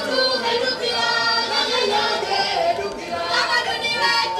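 Group of performers' voices singing together in long, sustained lines. No clear drum beats stand out.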